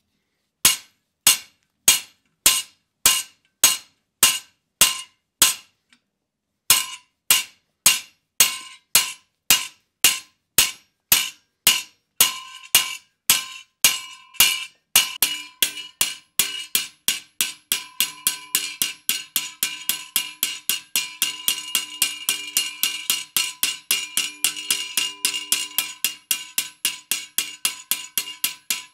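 Blacksmith's hand hammer striking a hot 5/8-inch round steel bar on an anvil, at first through a spring fuller, to isolate a mass for forging. Each blow rings off the steel. The blows come about twice a second, pause briefly about six seconds in, then quicken to three or four a second with a lower ring joining in.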